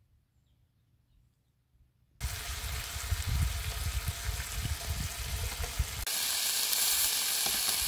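Near silence for about two seconds, then slices of raw meat sizzling in a hot nonstick grill pan, starting suddenly, with low bumps under the sizzle. About six seconds in the sizzle turns brighter and steadier as the meat is turned with chopsticks.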